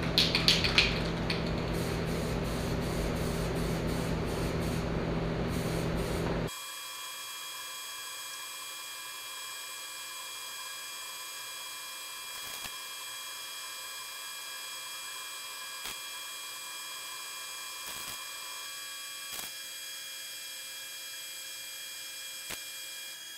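Aerosol can of black trim paint spraying over a steady hum. A louder, lower hum cuts off suddenly about six seconds in, leaving a quieter hum with a few faint ticks.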